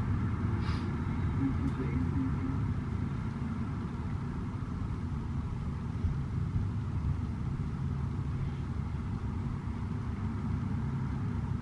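A steady low mechanical hum, unchanging throughout, with faint voices.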